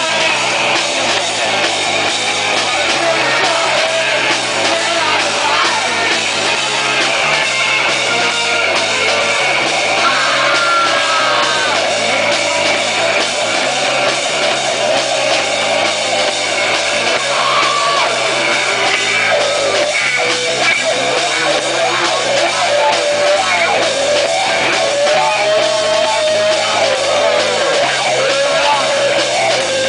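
A punk rock band playing live and loud, with distorted electric guitars and a drum kit.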